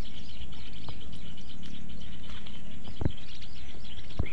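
Birds chirping and twittering without pause over a steady low outdoor rumble, with two short knocks, one about three seconds in and one just before the end.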